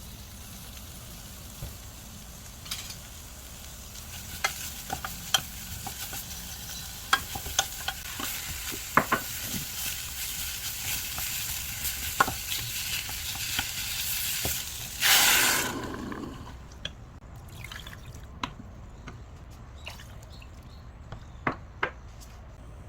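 Food sizzling in a frying pan, with sharp clicks of a utensil against the pan as it is stirred. The sizzle builds over several seconds, then a loud, brief rush of sizzling comes about fifteen seconds in before it settles lower.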